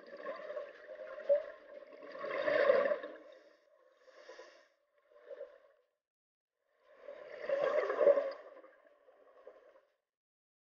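A scuba diver breathing through a regulator underwater, with two loud bursts of exhaled bubbles gurgling out about five seconds apart and fainter bubbling between them.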